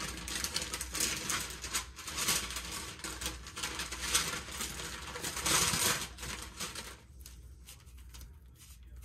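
Parchment paper crinkling and rustling under hands spreading sushi rice onto a nori sheet, quieter for the last couple of seconds.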